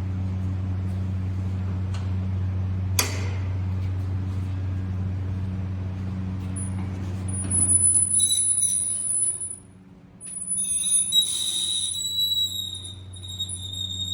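Ellis Model 4000 miter band saw running: a steady hum from its 2 HP single-phase motor, with a sharp click about three seconds in. From about eight seconds the hum drops away and a high-pitched squeal comes in and out.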